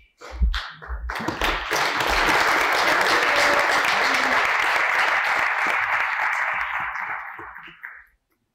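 Applause from a roomful of conference delegates. It starts about a second in, holds steady, then dies away just before the end.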